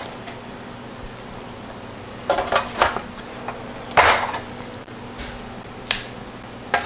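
Scrapes and clatters of a plastic scraper and an aluminium half pan as a frozen block of macaroni and cheese is pried loose and lifted out. A cluster of short clatters comes about two seconds in, the loudest knock about four seconds in, and lighter taps near the end.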